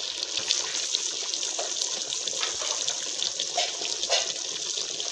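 Chicken pieces cooking in their own released juices in a pot on the stove: a steady sizzling hiss dotted with small crackles and pops.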